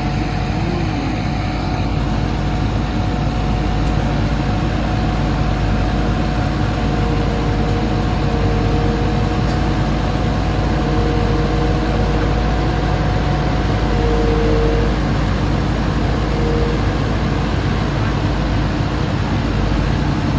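Hitachi Zaxis excavator's diesel engine running steadily. A steady whine over the engine stops about two-thirds of the way through.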